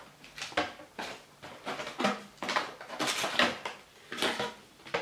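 Cardboard box and paper inserts being handled and lifted out: irregular rustling, scraping and light tapping of card and paper, busiest around three seconds in.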